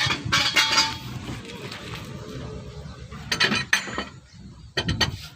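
A few bursts of metallic clinking and clattering: one about the first second, another a little past the middle, a third near the end.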